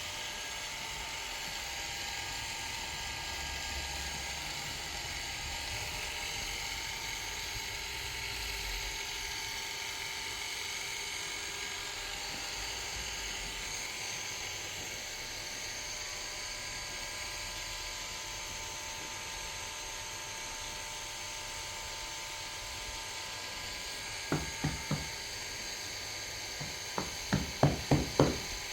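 A steady mechanical whir with a high hiss, then a quick run of sharp clicks near the end: three close together, then about five more, louder.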